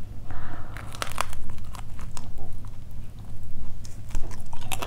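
Close-miked biting and chewing of crispy deep-fried pork belly: irregular crackling crunches throughout, thickest near the end.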